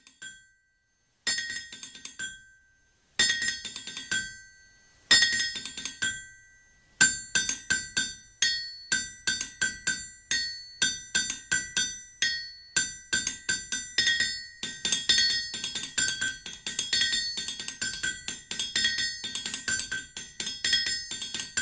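Outro music of ringing metallic percussion strikes: a few separate strikes with pauses between them, then from about seven seconds in a quick, steady rhythm.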